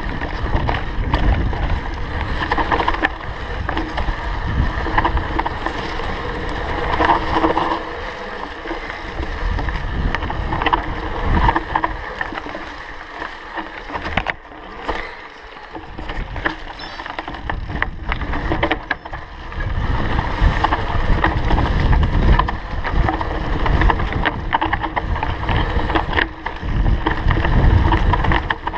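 Canyon Grand Canyon CF SL 8.9 mountain bike riding fast down a rough dirt singletrack: tyre rumble and wind on the microphone, with constant clattering from the bike over the bumps. It eases off for a few seconds midway, then picks up again.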